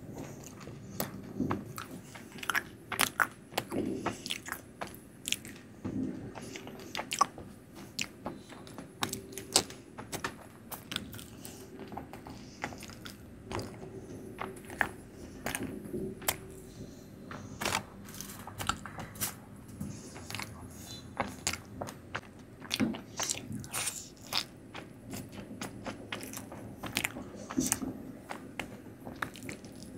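Close-miked chewing and biting of Indian sweets, with many irregular sharp wet mouth clicks, several a second.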